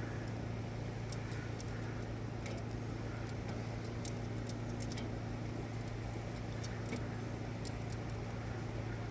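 Steady low hum of an electric fan, with scattered light crackles and ticks from chicken franks sizzling on a hot grill grate.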